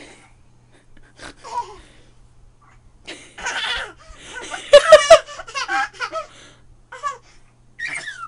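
A young child laughing in short bursts, the loudest a quick run of laughter about five seconds in.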